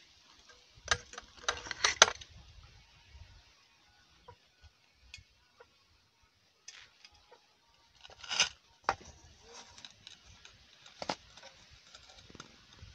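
A kitchen knife clicking and scraping against metal cooking pots as baked bread is cut and lifted out. Scattered sharp clinks, a cluster about a second or two in, another past the middle and one more near the end, with quiet stretches between.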